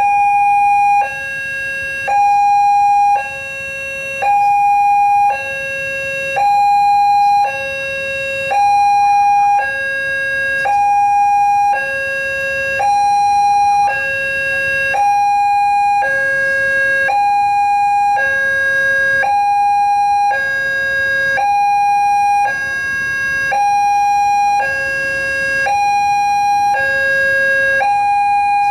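Railway level-crossing warning siren sounding its two-tone alarm, alternating evenly between a higher and a lower note of about a second each. It signals that the barriers are down and a train is approaching.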